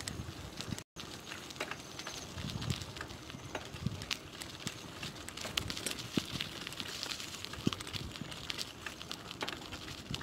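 Bicycle riding on a wet asphalt road: a steady hiss of tyres with many small irregular crackles and clicks. The sound drops out completely for a moment about a second in.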